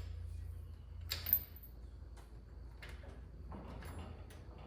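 Light clicks and a short knock about a second in, with some rustling later, as hand tools and metal motorcycle parts are handled, over a low steady hum.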